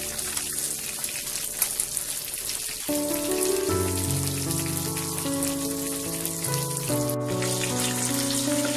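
Oil sizzling and crackling steadily as whole climbing fish shallow-fry in a pan, with background music of held notes, louder from about three seconds in.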